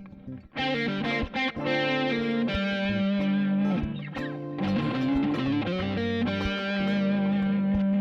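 Background music; it drops out briefly near the start, and a note slides upward around halfway.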